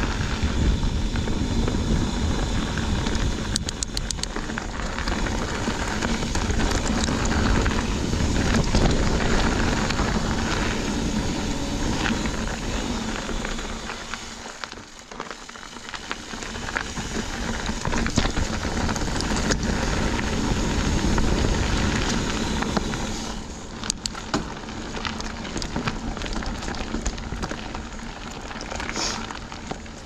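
Mountain bike ridden fast down a dirt singletrack: wind rushing over the microphone and tyres crackling over the trail surface, easing briefly about halfway through, with sharper clicks and rattles in the last few seconds.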